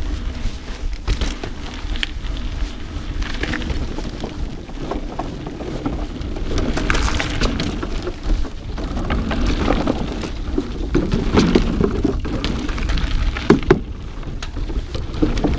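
Mountain bike riding over a dirt trail, heard through an action camera's microphone: steady wind rumble on the mic with tyre noise and frequent clicks and rattles from the bike over rough ground.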